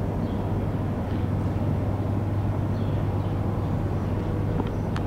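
Steady low electrical hum from air-conditioner outdoor units running on the courtyard walls, with a faint rushing noise and a couple of faint clicks near the end.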